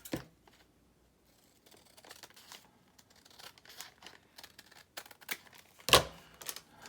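Sheets of craft paper being handled and shuffled: intermittent rustling and light taps, with one louder rustle or knock about six seconds in.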